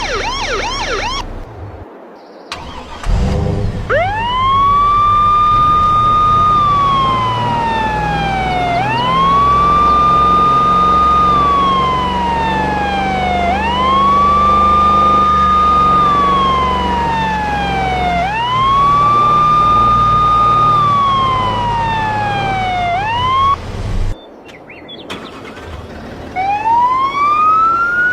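A truck's electronic siren horn. It opens with a fast warble, then plays a slow wail four times: each cycle rises quickly, holds, then slides down slowly, about every five seconds, over the low rumble of the truck's running engine. The wail cuts off suddenly and a new rising wail starts near the end.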